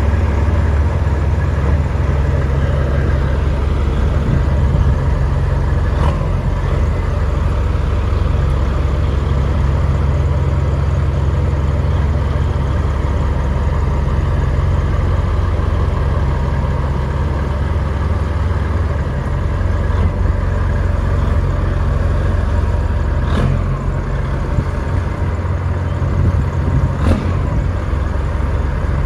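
Semi truck's diesel engine running steadily at low revs, with three short clicks over it.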